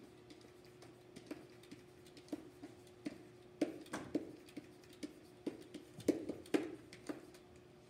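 Stylus pen tapping and scraping on an interactive whiteboard during handwriting: a string of irregular clicks, some sharper than others, over a steady hum.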